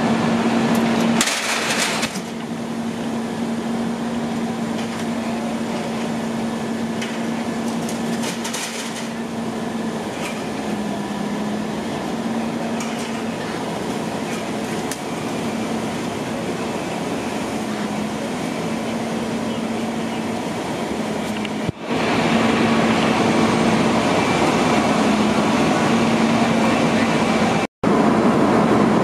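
Fire apparatus diesel engine running steadily with a constant hum. Two short bursts of cracking noise break in, about a second and a half in and again about eight seconds in.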